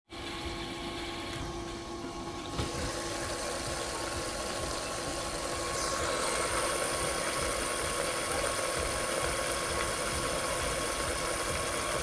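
LG top-loading washing machine with a direct-drive motor running, water churning and swishing in the drum over a steady mechanical hum. The sound grows louder a couple of seconds in and again about halfway, when a hissing layer comes up.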